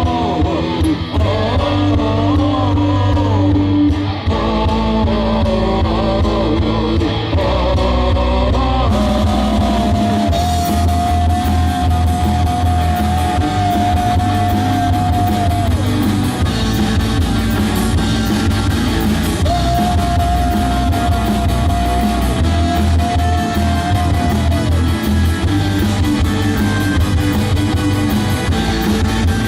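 Live rock band playing an instrumental passage: a lead guitar holds long sustained notes over bass and drums. The drums come in fully about nine seconds in.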